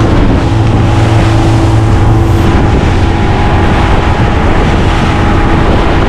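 Small motorboat running at cruising speed: a steady engine drone under a loud rush of wind on the microphone and water churning past the hull.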